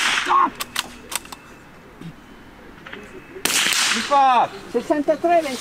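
.22LR precision rifle shots fired from prone: one shot right at the start and a second about three and a half seconds later, with a few light clicks between them.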